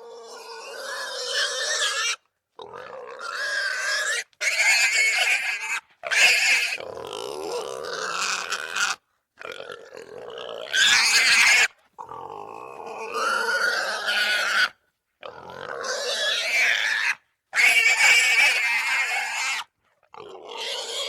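Russian wild boar squealing: a run of about nine harsh, shrill squeals, each one to three seconds long, separated by brief silent gaps.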